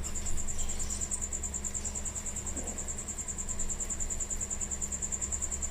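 A cricket trilling steadily: an even, rapid high-pitched pulsing, over a low steady hum.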